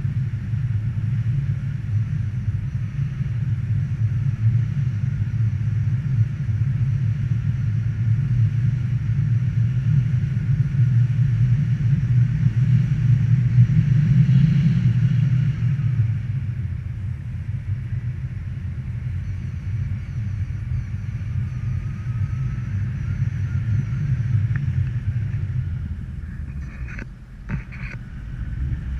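Wind rushing over the microphone in a steady low rumble. It swells briefly about halfway through, then eases, and a few knocks come near the end.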